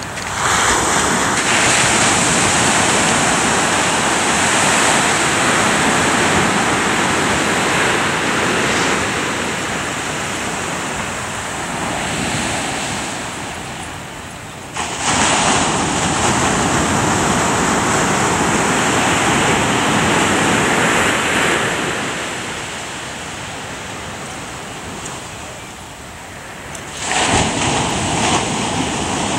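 Ocean surf breaking and washing up a sandy beach: a steady rush of water that swells and eases, jumping suddenly louder about halfway through and again near the end.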